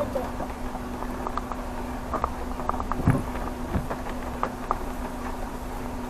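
A car driving slowly over a rutted dirt track, heard from inside the cabin. There is a steady low engine hum, with scattered clicks and knocks as the car jolts over bumps, and one heavier thump about three seconds in.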